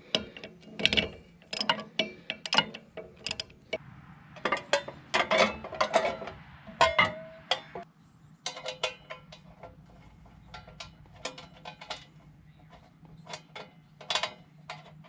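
Irregular metallic clicks and clanks of hand tools and steel parts being worked on a tractor PTO driveline where it fits onto the rototiller's gearbox shaft, with a briefly ringing clank about seven seconds in.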